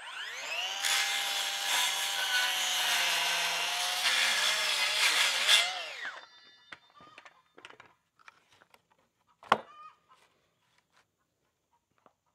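Circular saw spinning up and cutting through a 2x6 board for about five seconds, then winding down. About nine and a half seconds in there is one sharp knock.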